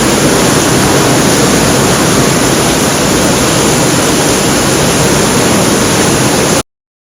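Heavy rain pouring down, a loud, steady hiss that stops abruptly about six and a half seconds in.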